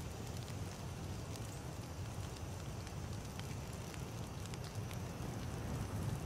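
Wood campfire burning, a steady low rumble of flames with scattered small crackles and pops.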